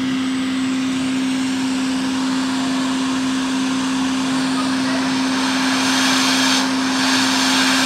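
Hot air rework station blowing steadily, with a steady low hum, as its nozzle heats a backlight IC for soldering onto a MacBook logic board. The air noise grows a little louder about halfway through as the nozzle comes in close.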